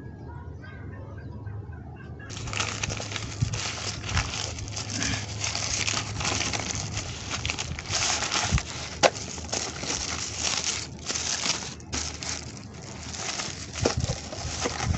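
Plastic courier mailer bag crinkling and rustling as it is handled and opened and a paperback book is pulled out, starting about two seconds in, with many small crackles and one sharp snap about nine seconds in.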